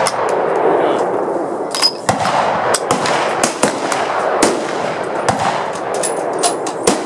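Rifle fire along a firing line: many sharp shots at irregular intervals, some close together, over a steady background noise.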